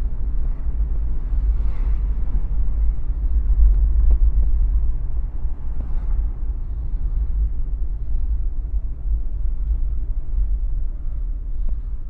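Steady low rumble of a car being driven: road and engine noise.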